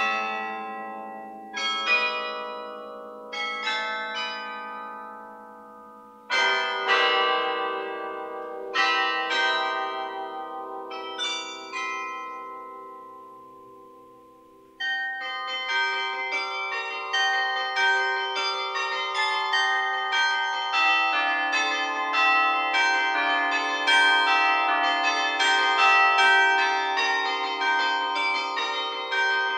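Carillon bells played from the baton keyboard. Six chords sound a second or few apart, each left to ring and fade. About halfway in, after a brief lull, a fast, continuous flurry of many bell notes begins.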